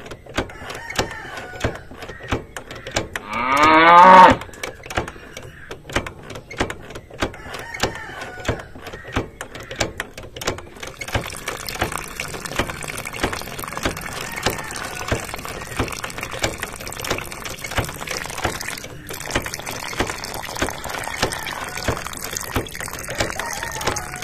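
Miniature hand pump worked by hand, its small handle clicking steadily with each stroke; from about halfway through, water trickles from the spout into a small cup. About four seconds in there is a short, loud, rising call, the loudest sound.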